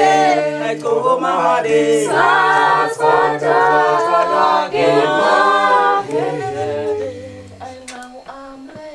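Group of men and women singing a cappella in several voice parts, with no instruments; the singing softens over the last few seconds.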